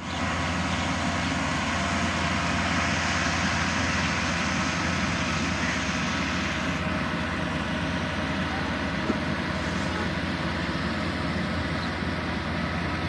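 Rice combine harvester running steadily, its engine and threshing machinery making a constant dense drone.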